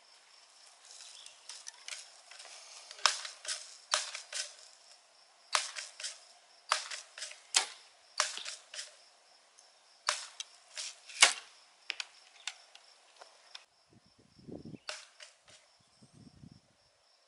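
A long run of sharp, irregular clicks and snaps from a child's toy gun, roughly two a second, followed near the end by two short, dull low rumbles.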